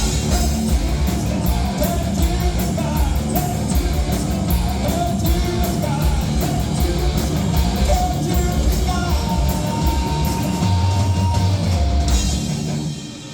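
Rock band playing loud live, with drums, cymbals and guitar, and yelled vocals over them. The music drops away near the end as the song finishes.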